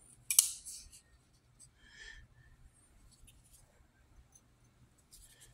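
Handling noise from a closed Spyderco Military 2 folding knife and its paper box insert. There is a sharp click with a short rustle about a third of a second in, a softer rustle around two seconds, and another near the end.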